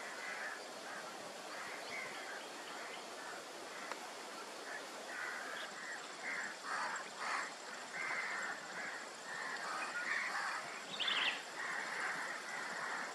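Outdoor ambience of many birds calling in overlapping, irregular calls, with one brief higher chirp near the end.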